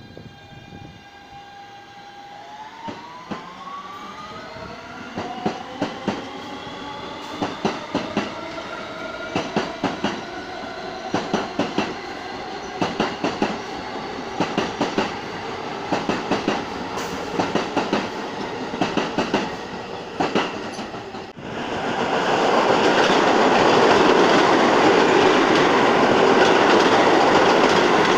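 A New York City subway train accelerating, its motor whine rising in pitch as the clickety-clack of wheels over rail joints quickens. About twenty seconds in, another subway train passes close at speed, and its loud steady rush of wheels on rail drowns out the first.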